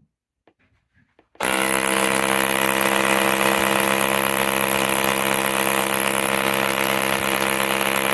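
A few faint clicks, then about a second and a half in a machine starts running loud and steady at an unchanging pitch.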